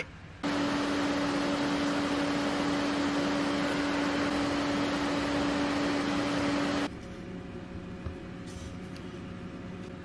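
A small fan-like motor running steadily with a low hum, starting about half a second in and cutting off suddenly about seven seconds in, leaving a fainter hiss and hum.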